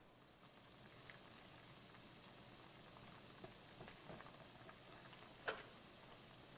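Pot of cauliflower florets boiling on the stove: a faint, steady bubbling hiss with light crackles. A single sharp click about five and a half seconds in.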